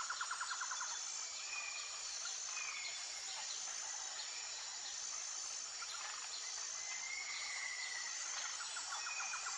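Outdoor nature ambience: insects singing steadily in a high chorus, with birds calling over it. A fast trill comes at the start and again near the end, and short whistled notes fall in between.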